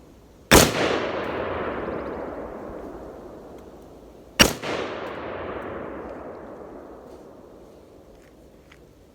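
Two loud bangs about four seconds apart, each followed by a long rolling echo that fades over several seconds.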